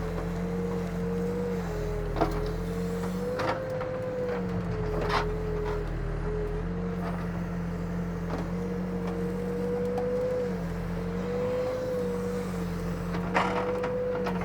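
Backhoe's diesel engine running under working load, its pitch dipping and rising gently as the hydraulics work the digging bucket, with a few faint knocks.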